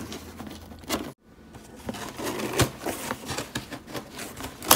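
Cardboard shipping box being handled and opened by hand: scratching, scraping and tapping on the cardboard, with a sharp knock at the end.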